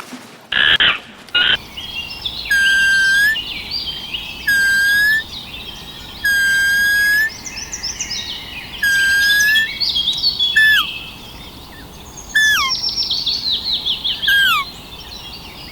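Birds singing: a clear whistled note repeated every couple of seconds over a busy layer of higher chirps, with some notes sliding downward later on. A brief burst of noise comes about a second in.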